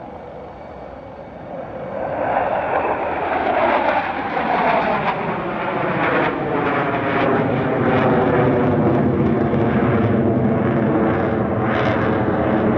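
Jet engine noise from Sukhoi fighter jets flying past overhead. The roar swells about two seconds in and stays loud, with a falling pitch as the aircraft pass.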